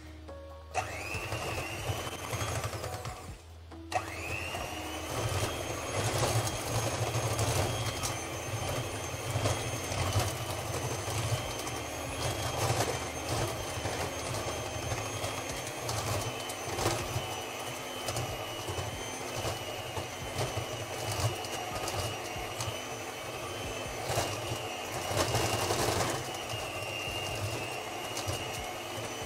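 Electric hand mixer beating waffle batter: the motor whine rises as it spins up, stops briefly about three seconds in, then spins up again and runs steadily.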